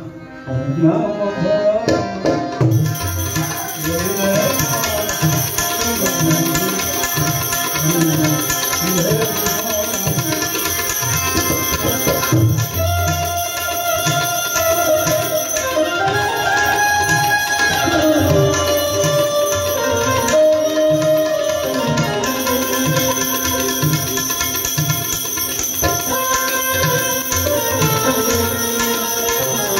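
Devotional bhajan music: a harmonium playing a sustained, gliding melody over a steady tabla rhythm.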